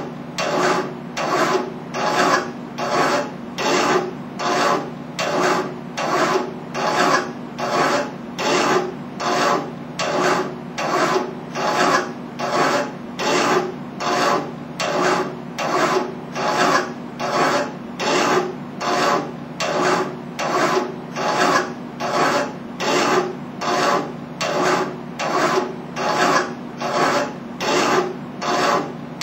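Hand file rasping on metal in steady, even strokes, a little more than one a second.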